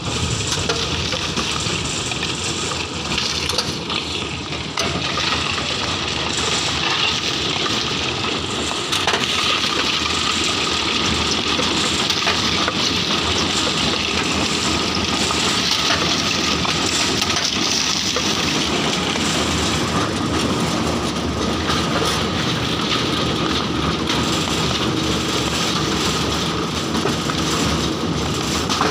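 Coconut dehusking machine running, its rollers stripping husk into fibre as coconuts are fed through; a continuous, even mechanical noise with a faint steady hum.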